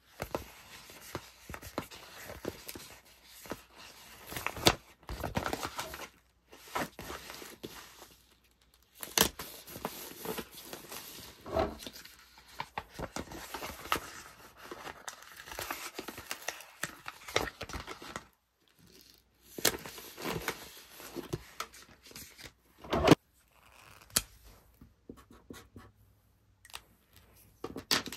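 Paper sticker sheets rustling and flexing in the hands, with a sticker peeled off its backing and pressed onto a plastic bubble mailer. Irregular rustling broken by several sharp crackles and taps, with short quiet gaps between.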